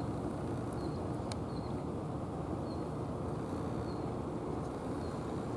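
Steady low rumble of outdoor background noise, with faint short high bird chirps repeating about once a second.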